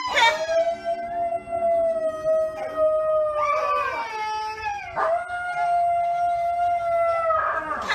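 Dog howling in two long, steady howls, the first ending about three and a half seconds in and the second starting about a second and a half later.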